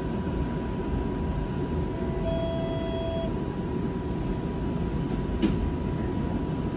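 Flexity Outlook streetcar running, heard from inside the car: a steady rumble of wheels and drive. It carries a faint high whine, a short beep-like tone about two seconds in, and a single click near the end.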